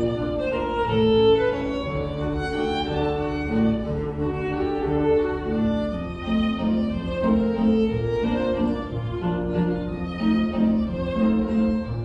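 Small live string ensemble of violins, cello and double bass playing a melodic piece, with sustained melody notes over a bass line that moves about once a second.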